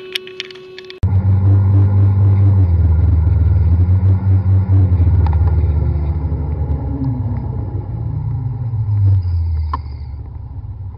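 Scooter engine running with a steady low hum. The pitch sinks over the last few seconds as it slows to a stop, and there is a sharp click near the end.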